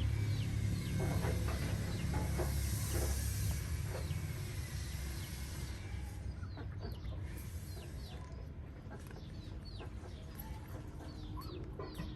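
Animal calls: many short, high chirps, each falling in pitch, repeating throughout, over a low rumble that fades about halfway through.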